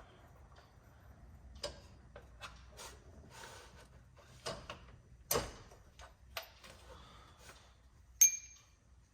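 Scattered light clicks and rustling of tools and parts being handled, with one sharp metallic clink that rings briefly near the end.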